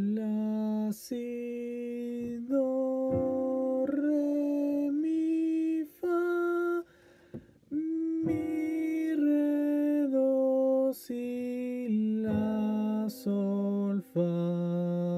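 A man's voice singing a Lydian-mode solfège exercise, one held note after another moving up and down by step, with a short break about seven seconds in.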